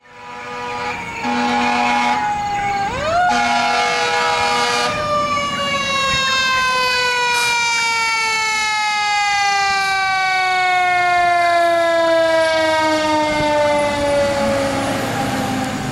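A fire engine's Federal Signal Q2B mechanical siren winds up quickly, then coasts down in one long, slowly falling wail over about twelve seconds. There are two air horn blasts, one about a second in and a longer one around three to five seconds in.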